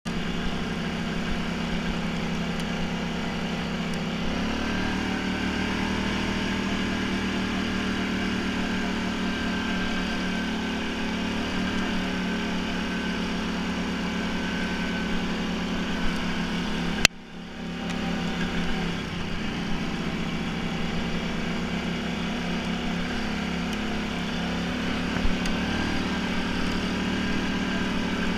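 ATV engine running steadily as the quad is ridden, picking up about four seconds in. A single sharp click comes about two-thirds of the way through, and the engine sound dips for a moment before it returns.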